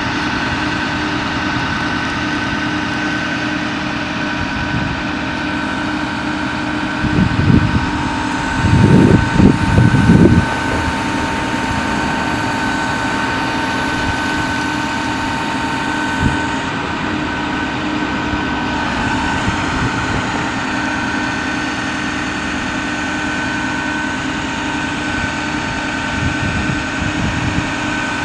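A Ford F550's 6.4L diesel engine running steadily with a constant whine as the Altec AT37-G articulating boom is raised and extended on hydraulics. Louder low rumbles come and go twice, around seven to ten seconds in.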